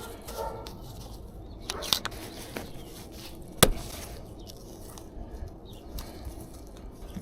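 Scattered light clicks and knocks of hands and parts being handled, with the loudest a single sharp knock a little past three and a half seconds in.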